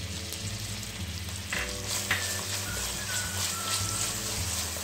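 Chopped tomatoes sizzling in hot spiced oil in a nonstick kadhai while a spatula stirs them, with a steady frying hiss and a few sharper clicks.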